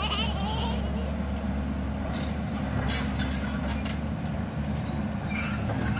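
Diesel engines of a tracked excavator and a dump truck running steadily while the excavator loads soil, with a few sharp knocks and clatters, about two and three seconds in and again near the end, as the bucket works and dirt drops into the truck's steel bed.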